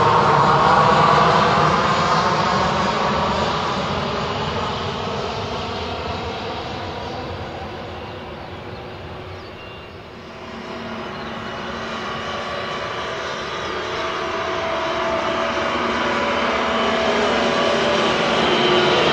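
Boeing 737-800's CFM56 jet engines running with a whining hum. The sound fades over the first ten seconds, then grows steadily louder again as the engines spool up for the takeoff roll.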